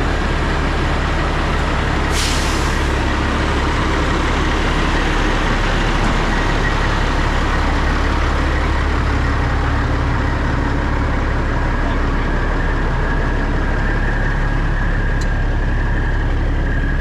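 Diesel semi truck idling steadily, with a short burst of compressed-air hiss about two seconds in, as from the truck's air brakes or air lines.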